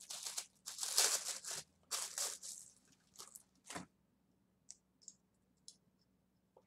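Paper wrapping being torn and crinkled off a small boxed guitar model: several rustling, tearing bursts over the first four seconds, loudest about a second in, then a few faint ticks.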